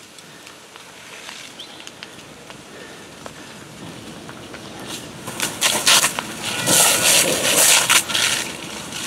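Fire hose spraying water onto smouldering barn debris: a quieter hiss with scattered crackles at first, then loud, uneven hissing gushes from about halfway as the stream hits the burnt wreckage.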